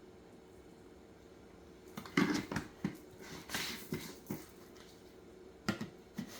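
Dried herbs and their containers being handled while ingredients are added: a run of light clicks, taps and rustling starting about two seconds in, with one more click near the end.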